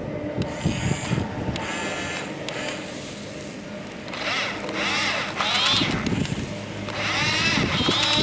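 Small electric motors and gear trains of radio-controlled construction models: clicking and ratcheting at first, then high whines that rise and fall in pitch from about halfway through.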